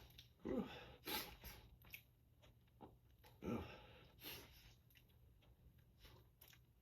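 A person's breathing between sneezes: two voiced catches of breath, about half a second and three and a half seconds in, each followed by a short breathy rush of air, with faint clicks in between.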